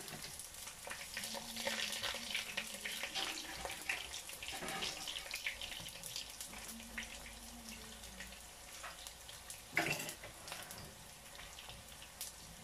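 Dried salted fish (daing) frying in oil in a pan: a steady crackling sizzle, with a utensil scraping and clicking in the pan as the pieces are turned, and one sharper knock about ten seconds in.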